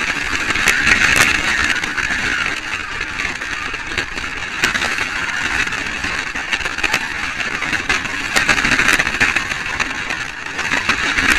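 Slot car's small electric motor and gears running at speed along a plastic track, a steady whirring with scattered sharp clicks.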